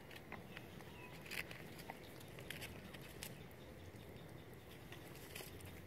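Faint, scattered clicks and crackles, about half a dozen of them sharper, from long-tailed macaques handling and chewing food while they sit in dry leaf litter, over a quiet forest background.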